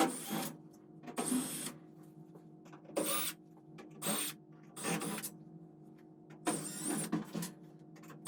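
Cordless screw gun backing out Phillips head machine screws, in about six short runs of a whirring motor that winds up and down, one screw after another.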